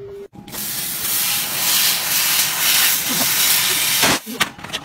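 Handheld laser cutting a hole in a steel pipe: a loud, steady hiss of gas and sparks that stops abruptly near the end, followed by a few sharp clicks.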